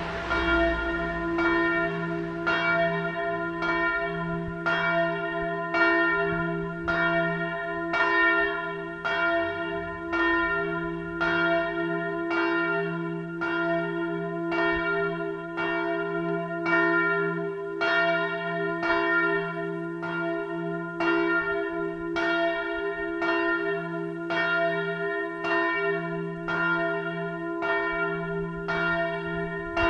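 A single large church bell, bell 1 of the peal, tolling alone. It is struck steadily a little faster than once a second, and each stroke's deep hum rings on under the next.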